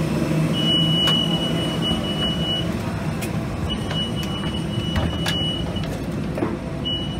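Steady low rumble inside an Airbus A320 cabin during boarding, with a few light knocks. Over it a high steady tone sounds for about two seconds, stops for about one, and repeats three times.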